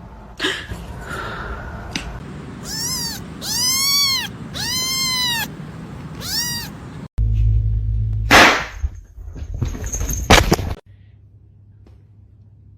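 A cat meowing four times, each call rising and then falling in pitch. It is followed by a low rumbling noise with two sudden loud sounds.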